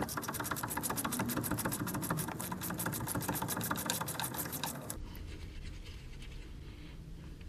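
Socket tool on an 18 mm steering-linkage nut, rattling with fast, even clicks for about five seconds as the nut is spun off, then stopping.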